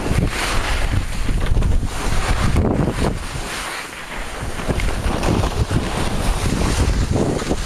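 Wind buffeting the microphone during a ski run, with the rushing hiss of skis on snow. It eases briefly about four seconds in.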